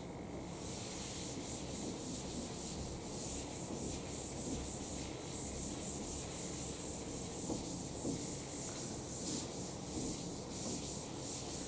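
Chalkboard duster wiping chalk off a blackboard in quick, evenly repeated back-and-forth strokes.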